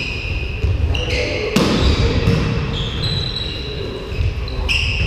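Volleyball being struck during a rally: several sharp hand-on-ball slaps, echoing in a sports hall, with short high squeaks of sneakers on the floor between them.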